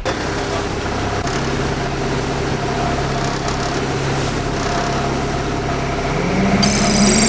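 Steady drone of a river boat's engine running. Music comes in near the end.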